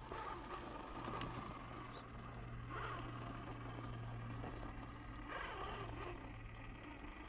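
A 1/10-scale electric RC crawler's motor and drivetrain running with a steady low hum as it strains up a steep rock slab, with small clicks and scrabbling from its tyres on the rock and grit. The truck is struggling on the climb.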